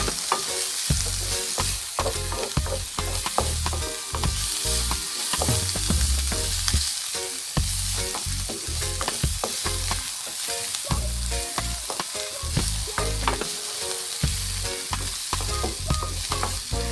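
Mixed vegetables sautéing in butter and oil in a non-stick wok: a steady sizzle, with a wooden spatula stirring them and repeatedly scraping and tapping against the pan.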